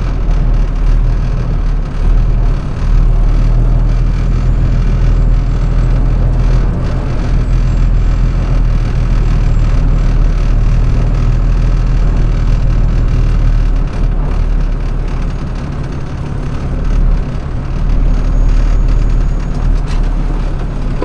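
Straight truck's engine running steadily as the truck rolls slowly, heard from inside the cab as a low rumble.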